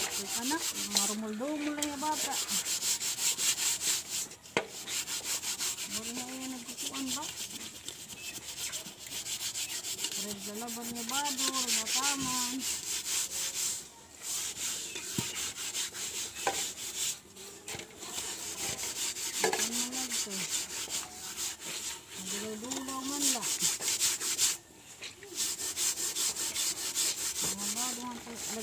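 Bare hand scrubbing a soot-caked cooking pot with wet gritty paste: a fast, even, gritty rasping of rubbing strokes, with a few brief pauses. The soot is being scoured off the pot without a scouring pad.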